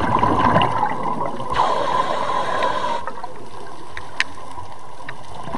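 Underwater ambience picked up by a diver's camera: a steady wash of water noise with scattered clicks, and a gush of scuba exhalation bubbles for about a second and a half, starting about a second and a half in.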